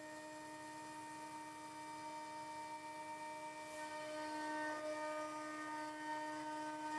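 CNC router spindle running with a steady hum of several even tones as its bit cuts profiles in extruded acrylic sheet; the cutting grows a little louder about four seconds in.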